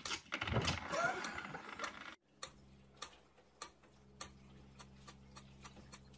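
A short voice-like sound with rustling gives way, about two seconds in, to the steady low electrical hum of an aquarium pump. A soft click repeats under it a little less than twice a second.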